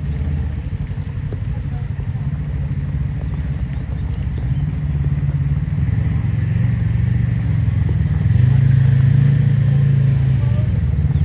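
Off-road vehicle engine running at low revs while the vehicle is maneuvered slowly, its hum growing louder about halfway through.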